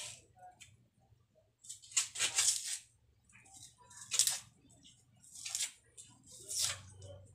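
Kitchen knife slicing a small tomato held in the hand: four short, scratchy cutting sounds spaced a second or two apart.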